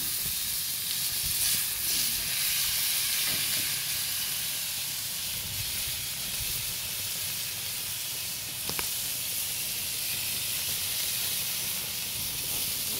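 Two nearly done steaks, just turned, sizzling steadily on a gas grill's ribbed griddle plate, with one faint click about nine seconds in.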